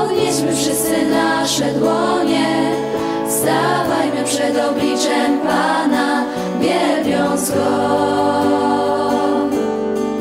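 A young women's vocal group singing a worship song together, accompanied by acoustic guitar.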